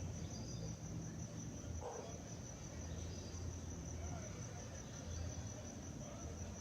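Crickets chirping in a steady, rapid high trill, over a low steady hum.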